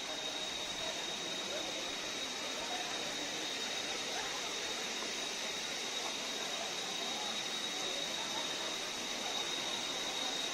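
Steady rushing of a waterfall, with a thin, constant high-pitched tone over it and faint voices of a crowd.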